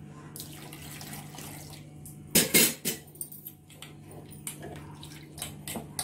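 Steel spoon clattering and scraping against a steel cooking pot of liquid, with water sloshing. The loudest clatter comes about two and a half seconds in, followed by a few lighter knocks.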